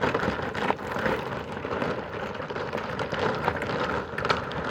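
Stiff dimpled plastic foundation membrane (Delta MS) rustling and crackling, with many sharp crinkles, as it is unrolled and handled.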